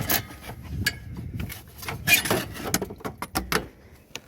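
Plastic cooling fan assembly and its shroud clicking, knocking and scraping against engine-bay parts as it is worked loose by hand, in a run of irregular knocks, the loudest about two seconds in.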